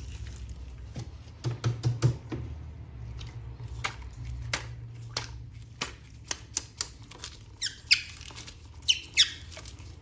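Plastic toy figures being handled, with scattered clicks and taps throughout and a few short, sharp squeaks near the end.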